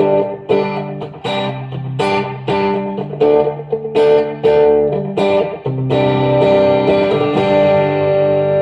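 Taylor T5z hybrid guitar, electric pickups, played through an amp's crunch preamp with reverb and delay: chords struck about twice a second, then one chord left to ring for about four seconds before a last strike near the end.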